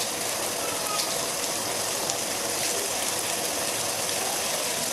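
Chicken, onion, olive and mushroom filling sizzling in a frying pan: a steady hiss with a few small pops.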